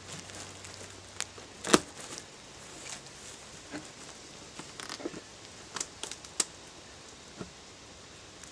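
Large cardboard shipping box being handled and shifted on wooden boards: scattered knocks and scuffs of cardboard, the loudest a sharp knock a little under two seconds in.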